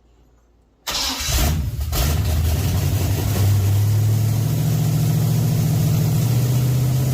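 Freshly rebuilt 454 big-block Chevy V8 firing up for the first time about a second in, catching and settling into a steady, loud run. It is the engine's first start on a new, never-fueled carburetor, ahead of cam break-in.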